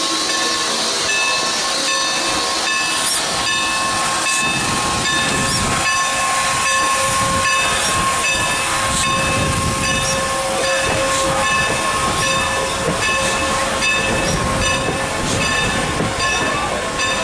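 Norfolk & Western 4-8-0 steam locomotive No. 475 standing at the platform, hissing steam steadily with a steady whine running through it. A low rumble joins about four seconds in.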